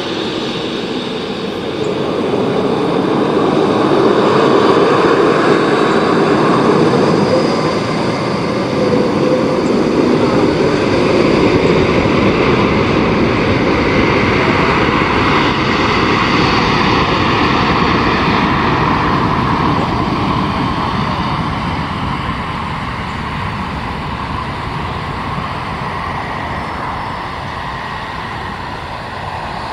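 Embraer E190 jet's twin GE CF34 turbofans, heard as the airliner taxis past and turns onto the runway, then runs up for takeoff and rolls away. The engine noise swells about two seconds in, stays loud through the middle, and fades steadily over the last several seconds as the jet moves off.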